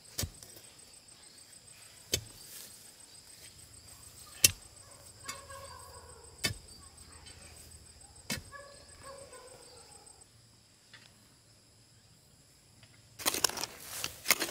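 A long digging pole struck down into hard soil, five sharp thuds about two seconds apart, loosening earth for a hole. Near the end a hoe chops and scrapes loose dirt out of the hole.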